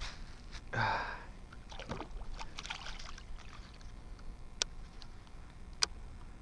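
A bass being landed and handled aboard a plastic fishing kayak: a short burst of splashing and thrashing about a second in, then scattered knocks and rustling against the hull, with two sharp clicks in the second half.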